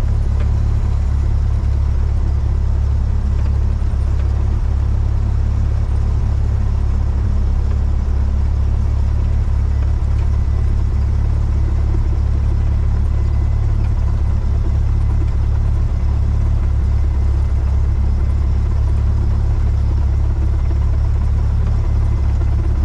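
Single-engine light aircraft's piston engine and propeller running, heard from inside the cockpit as a loud, steady low drone.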